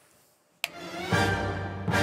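Near silence, then a sudden hit about two-thirds of a second in launches loud dramatic soundtrack music that swells and holds.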